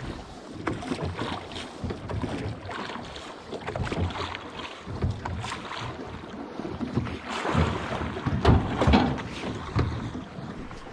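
River water splashing and churning in uneven surges, with wind buffeting the microphone.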